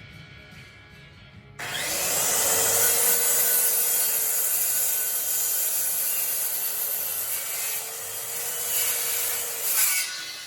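Corded electric power saw switching on about one and a half seconds in and cutting through wood with a steady motor whine for about eight seconds, then stopping.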